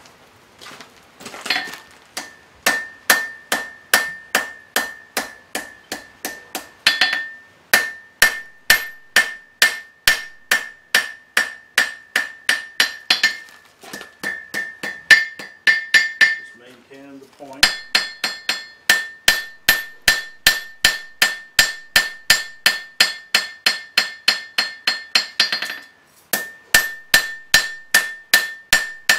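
Blacksmith's hand hammer striking a red-hot steel horseshoe blank on an anvil, about two to three blows a second over a steady high ring. The run of blows breaks off briefly a few times. This is the blade being drawn out to a taper.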